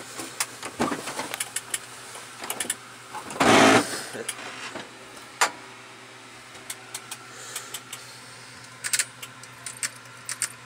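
Scattered clicks and knocks from people climbing into and settling in an airliner cockpit's seats, with one louder brief scraping noise about three and a half seconds in, over a steady low hum.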